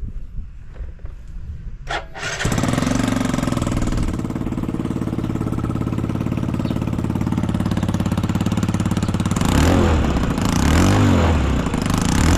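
Yamaha Jog ZR fuel-injected four-stroke scooter engine started: a click about two seconds in, then it catches and idles steadily, then is revved up and back down twice near the end. It runs without abnormal noises.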